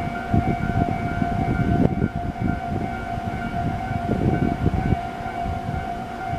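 Railway level-crossing warning bell ringing steadily as a Kotoden electric train rolls slowly toward the crossing, with the low rumble and knocking of its wheels on the rails underneath.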